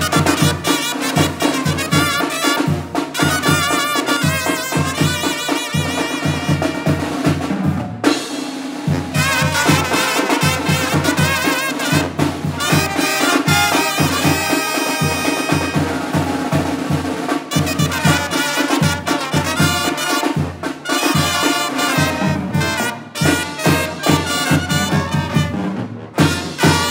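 Tamborazo band playing live: trumpets and trombones carry the melody over a sousaphone bass line and the tambora bass drum, with a steady, regular beat.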